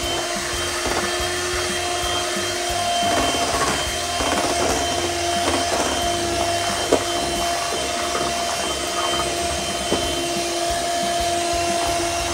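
Small handheld electric mixer running steadily with a constant motor whine, its beaters working thick cake batter in a steel bowl. There is one sharp knock about seven seconds in.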